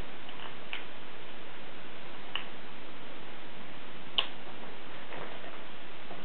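Steady hiss of recording noise with a few faint, irregularly spaced clicks.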